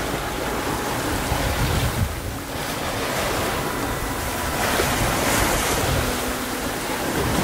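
Sea rushing and splashing along the hull of a sailing yacht under way, with wind buffeting the microphone. The wash surges louder a few times, most strongly about five seconds in.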